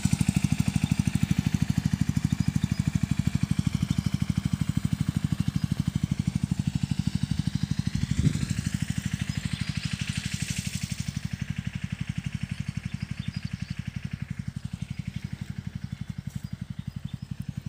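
A 10.5 HP Sanedo mini tractor's engine running steadily as it works along the crop rows, an even rapid pulse that slowly fades. A brief knock about eight seconds in.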